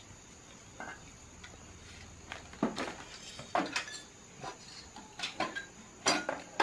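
Chopsticks and spoons clinking and tapping against porcelain bowls and plates, in short, irregular knocks.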